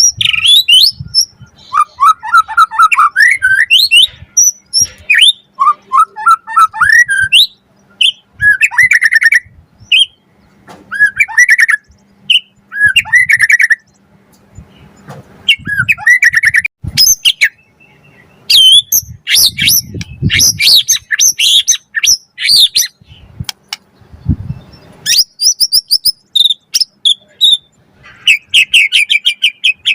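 White-rumped shama (murai batu) singing loudly and continuously: a varied run of clear whistles, fast trills and chattering phrases broken by short pauses, packed with borrowed notes.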